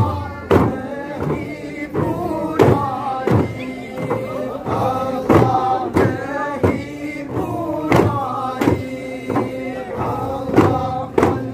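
Men's chorus chanting dhikr in unison over a group of daf frame drums struck together in a steady beat, about three strikes every two seconds.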